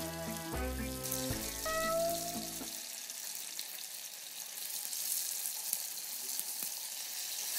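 Tofu slices frying in oil in a stainless steel pot with a steady, hissing sizzle. Music plays over it and stops a little under three seconds in.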